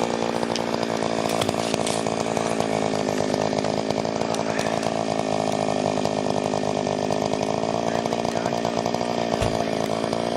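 Gas-powered ice auger engine running steadily as holes are drilled through river ice, its pitch sagging slightly about halfway through.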